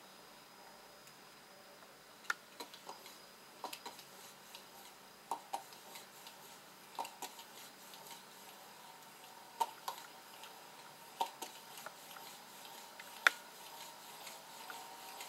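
NSD Spinner gyroscopic wrist ball being handled and set going: irregular light clicks and ticks of the metal ball in the hand, the sharpest about two seconds before the end. Near the end a faint rising whir begins as the rotor spins up.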